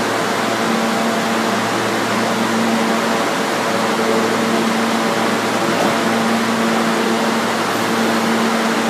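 Steady hum and hiss of a standing R160 subway train at the platform, its air-conditioning and onboard electrical equipment running, with a steady low droning tone.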